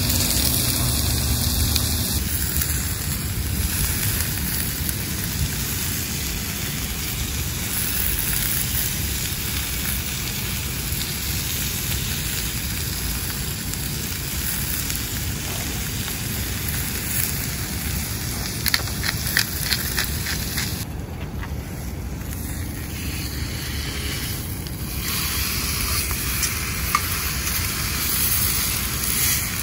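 Filet mignon steaks searing in a very hot cast iron skillet with olive oil, sizzling steadily. A cluster of short clicks comes about two-thirds of the way through.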